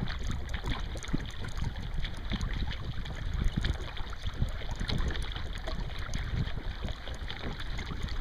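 Wooden Greenland paddle strokes splashing and dripping beside a kayak moving through choppy water, with a steady low rumble of wind on the microphone.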